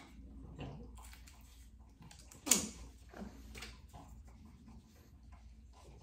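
Light clicks, taps and rustles of a makeup powder compact and its packaging being handled, with one short, sharp sound about two and a half seconds in.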